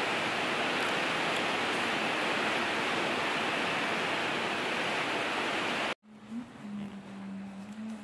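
Milk pouring in a steady stream from a pot into a glass mug, a continuous splashing hiss that cuts off abruptly about six seconds in. A fainter low hum follows.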